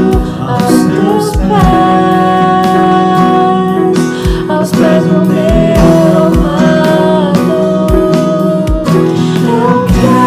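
Live praise-band worship music: guitar and long held melody notes over low bass-drum hits.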